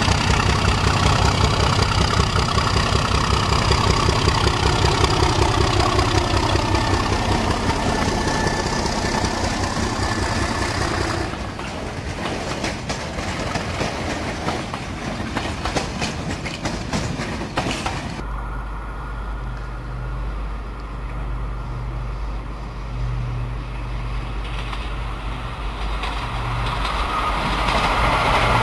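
English Electric Class 37 diesel locomotive's engine working steadily as it hauls a freight train past. After about 11 seconds, empty flat wagons clatter over the rail joints. From about 18 seconds, a steady low hum that grows louder near the end as a pair of electric locomotives approaches.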